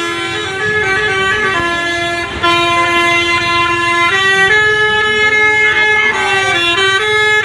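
Basuri 'telolet' multi-tone bus horn playing a melody, a loud run of held and stepping horn notes with a short break about two and a half seconds in.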